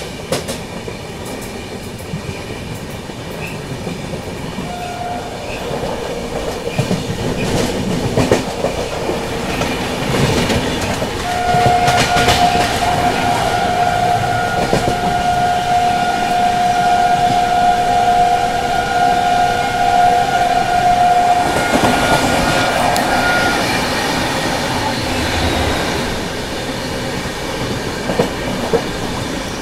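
Express passenger train running at speed, wheels clattering over the rails. A train horn sounds briefly about five seconds in, then a long steady horn blast of about ten seconds near the middle.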